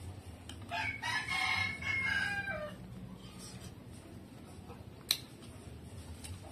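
A rooster crowing once, a call of about two seconds that drops off at the end. A single sharp click follows about five seconds in.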